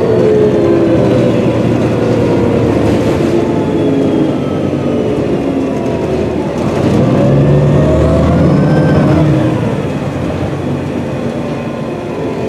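Cummins ISM diesel engine and Voith D864.3E automatic transmission of a 2006 New Flyer D40LFR transit bus running under way, heard from inside the passenger cabin. Its whining tones rise and fall as the bus pulls and eases off.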